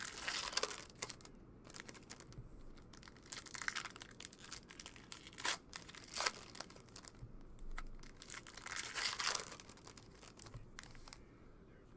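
Wrappers of baseball card packs being torn and crinkled open, with cards being handled. It comes in several rustling bursts a few seconds apart, with a couple of sharp crackles between them.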